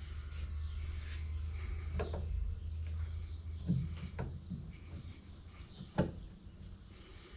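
Scattered light knocks and clicks from handling U-joint parts during reassembly, the loudest about six seconds in, over a low steady hum.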